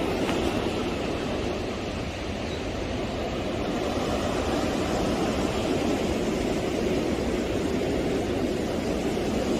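Fast-flowing Beas River rushing steadily and loudly, an even wash of water noise with no breaks.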